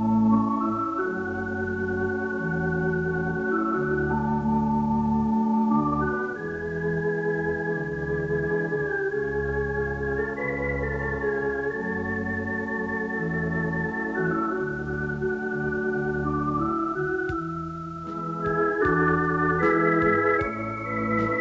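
Background organ music: slow, held chords over a bass line that moves every second or two, dipping briefly near the end.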